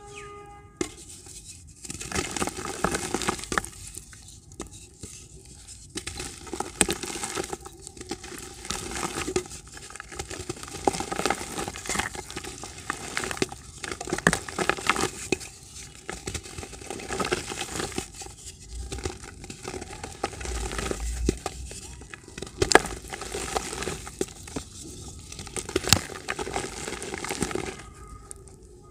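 Soft grey dirt blocks crushed and crumbled by hand over a bucket of water: a continuous gritty crunching and crackling as the blocks break apart and crumbs and powder fall into the bucket, with a few sharper cracks in the second half.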